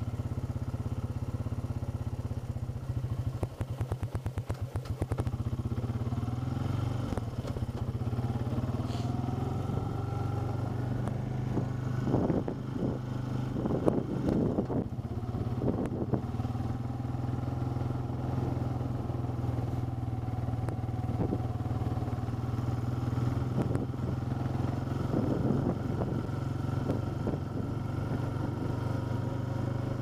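An off-road vehicle's engine running steadily as it drives along a bumpy dirt forest track. The engine note rises and falls with the throttle, and there are rattling jolts over rough ground about twelve to sixteen seconds in and again near the end.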